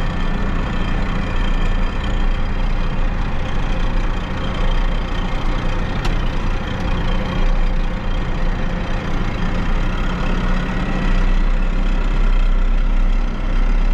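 Tractor diesel engine running steadily while the tractor drives along, heard from inside the cab.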